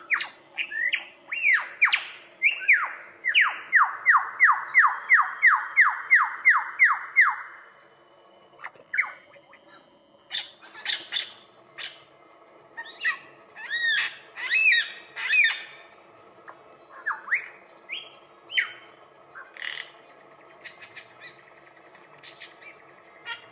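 Male superb lyrebird singing a mimicry sequence: a rapid run of about fifteen falling sweeping notes, about three a second, then after a short pause a varied series of chirps, whistles and squawks of different pitch.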